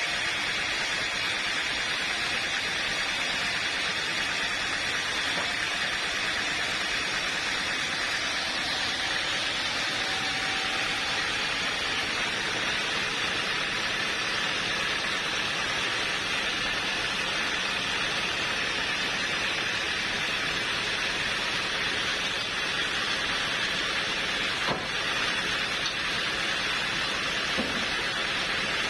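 Sawmill machinery running: a steady, even hiss-like noise throughout.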